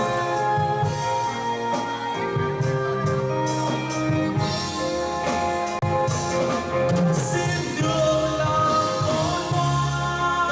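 Band music between sung lines: long held melody notes over drum kit and cymbals.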